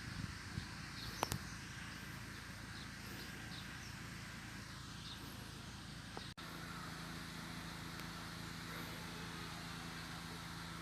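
Small engine-driven water pump running steadily, drawing river water for irrigation, with a couple of sharp clicks about a second in; the sound drops out for an instant about six seconds in and then resumes.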